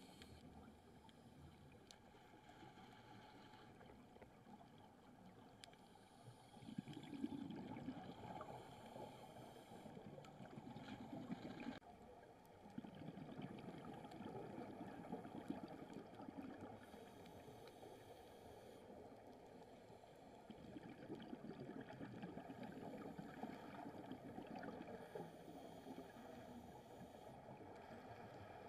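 Faint, muffled underwater noise picked up by a camera below the surface, a low dull rushing that swells louder for a few seconds at a time several times.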